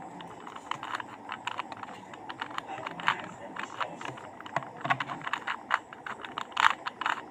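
Plastic 3x3 Rubik's cube being turned by hand, layer after layer: a quick, irregular run of plastic clicks and clacks, with one louder clack near the end.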